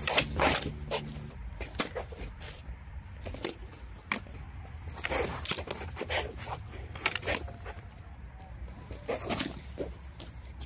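Sparring swords clacking against each other in irregular sharp strikes, some in quick pairs and clusters, as two fencers exchange blows.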